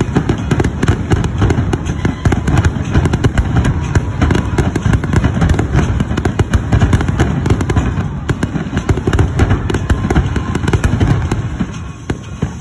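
Fireworks going off in a rapid, continuous barrage of bangs and crackling, easing off near the end.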